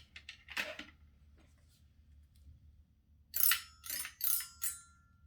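Toy xylophone struck four times in quick succession with a stick, about three and a half seconds in; the bars ring on briefly after the last strike. A softer knock comes about half a second in.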